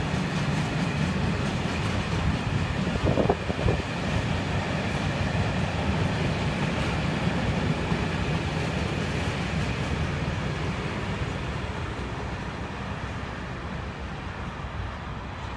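Freight train rolling past: a steady rumble of wagon wheels on the rails, with a couple of sharp knocks about three seconds in, slowly fading near the end.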